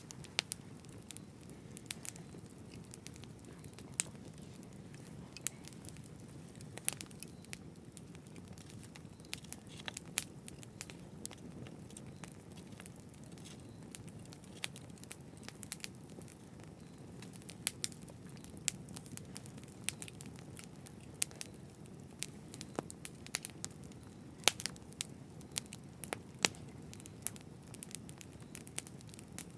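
Campfire burning: a steady low rush of flames with frequent sharp, irregular crackles and pops from the burning wood.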